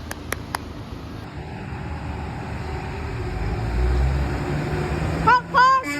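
Road traffic passing: a low vehicle engine rumble swells to its loudest about four seconds in and then eases. Near the end come two quick, high whoops that rise and fall.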